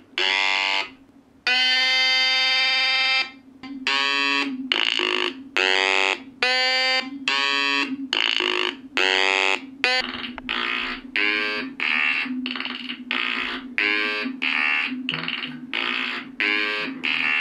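Mechanical rotary sequencer of 555-timer Atari Punk Console synths playing: buzzy electronic tones with many harmonics switch on and off in turn as the spinning rotor's brushes feed power to each synth level. A steady low tone runs underneath, and the pattern quickens to about two beeps a second about ten seconds in.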